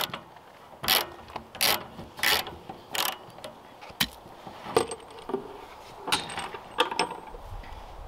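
Socket ratchet clicking in repeated short strokes, roughly one or two a second, as it unscrews the anode rod from an RV water heater tank.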